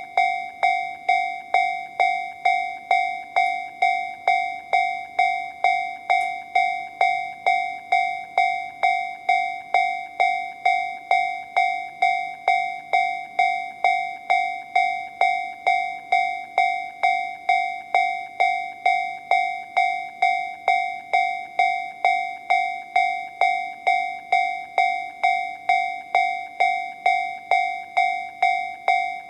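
Japanese railway level-crossing alarm from an electronic Toho Denki TA3-VR alarm generator playing the Tobu 'sound C' tone. It is a bell-like ding repeated about two times a second, each with a sharp strike and a short fading ring, at an even volume.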